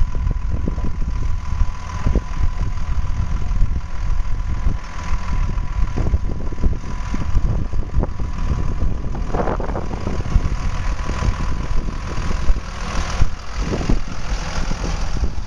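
Engine of Death Valley Railroad Co. motor railcar No. 5 running with a steady low rumble as the railcar rolls slowly past on the track.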